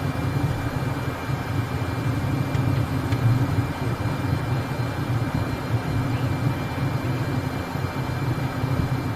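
Learjet's jet engines running while taxiing, heard inside the cabin: a steady low rumble with a thin, constant high whine over it.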